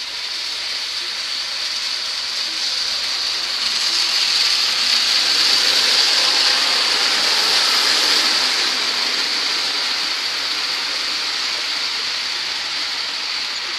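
Model trains running on a layout's metal track: a steady rushing hiss of wheels and motors. It swells as a locomotive passes close by, loudest about halfway through, then eases off.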